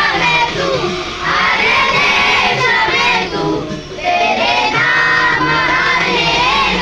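A group of children singing a prayer together in unison, in sung phrases with short breaks about a second in and about four seconds in.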